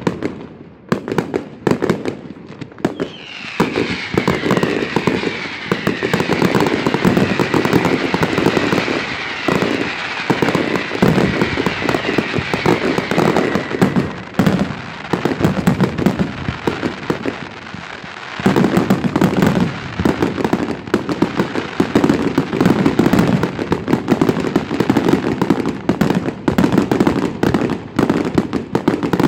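Fireworks display: a dense run of bangs and crackling from shells bursting overhead. A whistle falls slowly in pitch from about three seconds in until about fourteen seconds. From about eighteen seconds the bangs thicken into an unbroken barrage.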